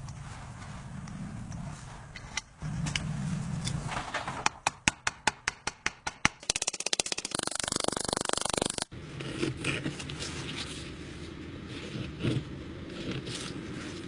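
Hand work on a knife in a workshop, in several edited takes: a run of about a dozen evenly spaced sharp strokes, then a rapid buzzing rattle that cuts off suddenly, then scattered light taps and scrapes.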